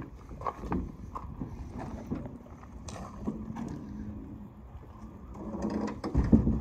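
Footsteps crunching on gravel, a run of uneven short knocks, with a louder low thud near the end.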